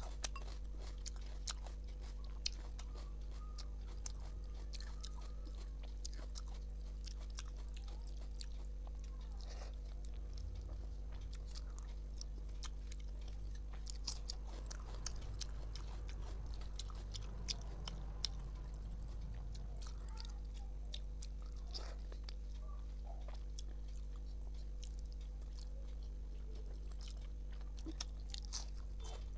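Close-up eating sounds of a rice meal eaten by hand: steady chewing and biting with sharp, wet mouth clicks scattered throughout, over a steady low hum.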